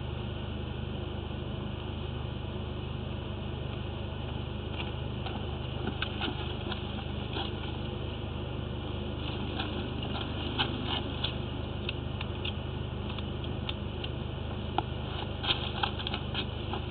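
Steady low hum of a running motor. From about five seconds in it carries scattered light clicks and taps of a hose and fittings being handled.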